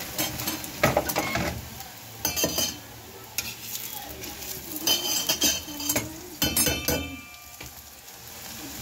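A steel spoon scrapes and clatters against a hot tawa in four or five short bursts as oil is spread over a radish paratha. Under it is a steady sizzle of the paratha frying in oil on full flame.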